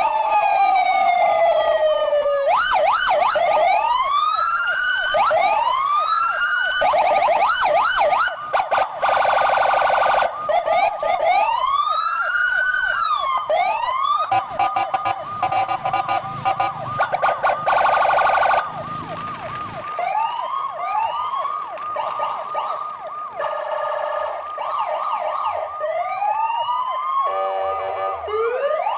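Several electronic toy siren sounds playing at once: repeated rising and falling wails and fast warbles over a steady high tone. It gets quieter about two-thirds of the way through.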